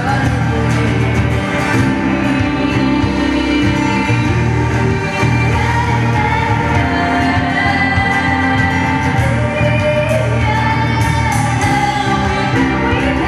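A live band playing a song, with a woman singing lead over electric guitar, bass and drums.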